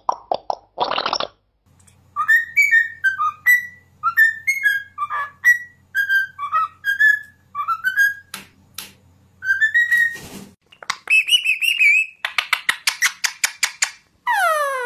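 Pet parrots vocalizing: after a short call at the start, a cockatiel whistles a tune of short rising and falling notes for about eight seconds. In the last few seconds comes fast chattering and rapid clicking, with a few falling whistles at the very end, from Indian ringneck parakeets.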